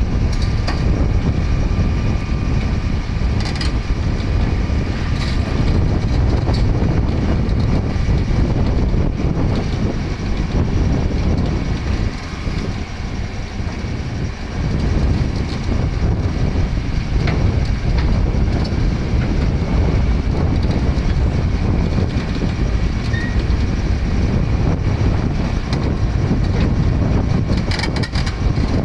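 Excavator's diesel engine running steadily under load, with a few short metallic clanks from its steel tracks or machinery.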